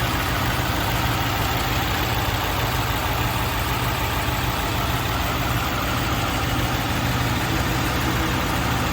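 Mercedes-Benz 300SEL 6.3's M100 6.3-litre V8 idling steadily with an even low hum.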